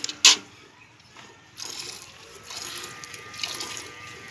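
Jets of milk squirting into a partly filled steel bucket as a water buffalo is milked by hand, starting about one and a half seconds in and coming in quick pulses. A single sharp knock, the loudest sound, comes about a third of a second in.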